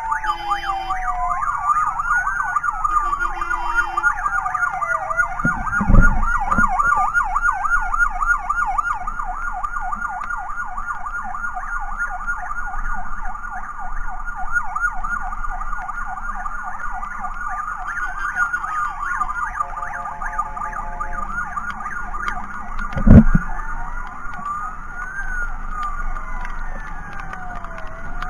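Emergency sirens of an ambulance convoy sounding together: a fast yelp warbling without pause, overlaid by a slower wail rising and falling every couple of seconds, with a few short horn beeps. Two loud, brief thumps come about six seconds in and again about twenty-three seconds in.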